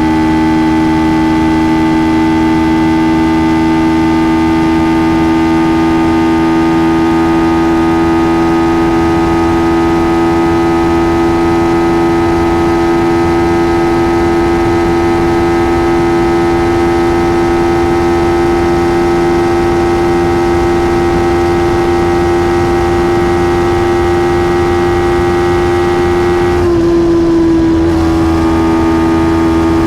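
Kawasaki Ninja 300's parallel-twin engine running steadily at high revs through its stock exhaust. Near the end the engine note briefly dips and breaks off, then settles back a little lower.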